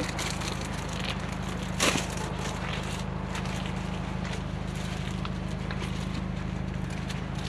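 A steady low mechanical hum with a faint crackling hiss, and a single click about two seconds in.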